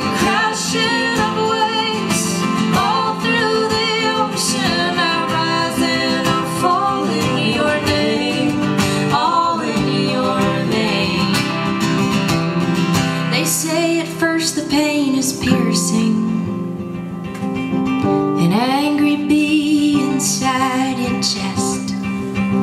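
A woman singing over her own acoustic guitar in a folk song, the guitar carrying steady chords beneath a sliding, drawn-out vocal line.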